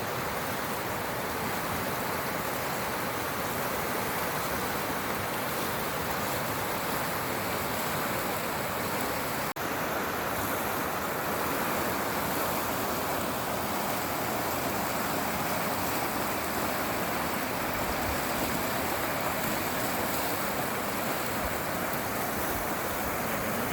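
Steady rushing of a fast, snowmelt-fed mountain river, an even hiss of water with no let-up.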